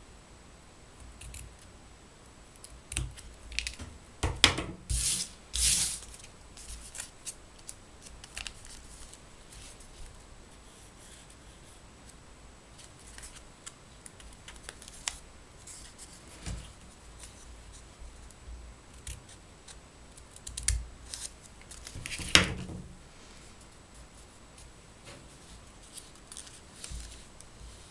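Small scissors snipping paper several times in the first few seconds, then softer rustling and creasing of folded paper being handled, with one more loud rustle about two thirds of the way through.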